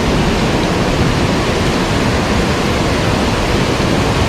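Mountain stream water rushing steadily over rocks, a loud even noise with nothing else standing out.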